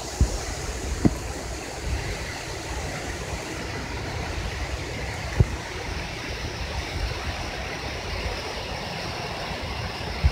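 Steady rushing outdoor background noise, with strong rumble at the bottom, and two short soft knocks, about a second in and again near the middle.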